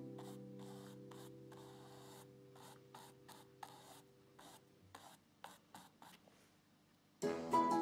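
Faint short scratchy strokes of a painting or drawing tool rubbing on canvas, about a dozen of them, while the last notes of music die away. Music starts up again near the end.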